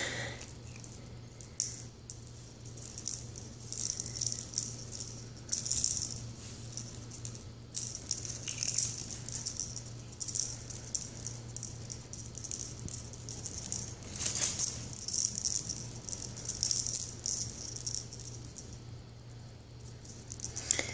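Small bell on a bungee cat toy jingling in irregular bursts as a cat bats and tugs at it, loudest about six seconds in and again about fourteen seconds in.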